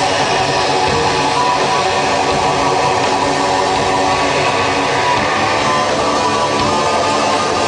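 A rock band playing live, loud and continuous, with electric guitar to the fore.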